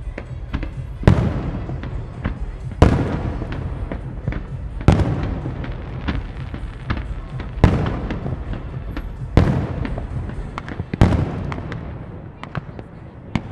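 Aerial fireworks bursting: six loud bangs roughly every two seconds, each with a long echoing tail, and scattered crackling between them. The bangs stop about two seconds before the end, leaving lighter crackles.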